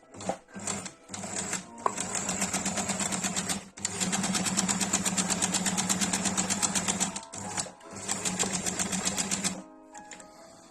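Singer 2630C sewing machine stitching in a fast, even rhythm. After a few short starts it makes three longer runs with brief stops between them, then stops about a second before the end.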